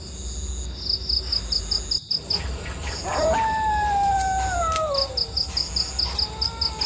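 Crickets chirping in quick pulsing trains. About three seconds in, a long animal howl comes in and slides slowly downward for about two seconds, and shorter wavering howls follow near the end.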